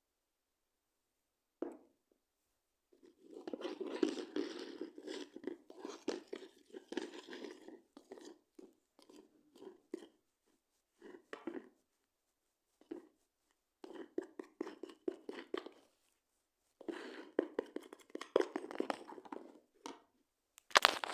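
Crackly, squelching sounds of a shaving-foam and toothpaste slime mixture being stirred and squished, in irregular bouts with short pauses.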